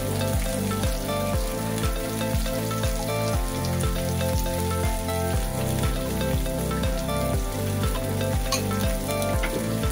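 A fork whisking eggs in a glass bowl, a quick scraping and stirring, over background music with a steady beat.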